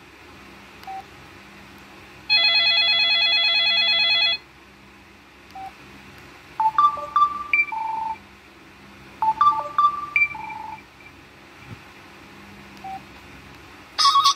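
Samsung Contour 2 flip phone playing ringtone previews through its small speaker. A two-second rapidly pulsing electronic ring comes first. Then a short beeping melody plays twice, with single short beeps between them.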